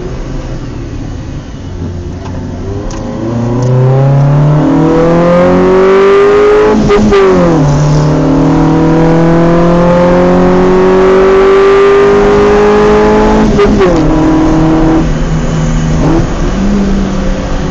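Chevrolet Celta VHC engine breathing through an open sport air filter, accelerating hard. The engine note climbs, drops sharply at a gear change about 7 seconds in, climbs again more slowly, and drops at another shift near 13.5 seconds.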